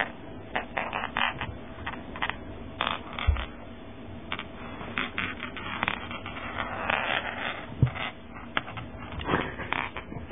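A cat moving about inside a clothing sleeve: irregular rustling of fabric and scratching, with many short sharp clicks and a denser stretch of rustling about seven seconds in.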